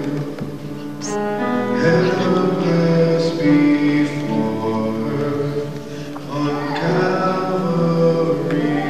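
Music with singing: long held sung notes over instrumental accompaniment.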